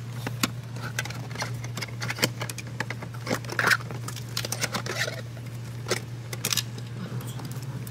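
Irregular clicks, taps and rustles of a USB cable being pushed along carpet and under plastic dashboard trim by a gloved hand, over a steady low hum.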